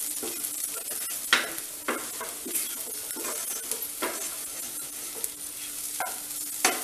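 A spatula scraping and stirring soya chunks being dry-roasted in a frying pan over low flame, in irregular strokes over a steady sizzle.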